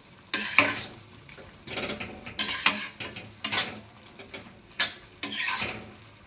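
A spoon stirring and scraping around a cooking pan of amla pieces simmering in melted jaggery, in a run of irregular short strokes.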